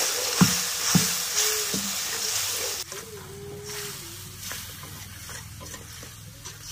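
Masala paste sizzling as it fries in a steel kadhai, stirred and scraped with a steel spoon, with two sharp clicks of the spoon on the pan about half a second and a second in. About three seconds in the sizzle drops away, leaving quieter stirring.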